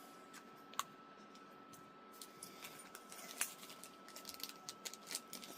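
Faint scattered clicks and light rustling of small plastic kit parts and packaging being handled, with a sharper click about a second in and another past three seconds.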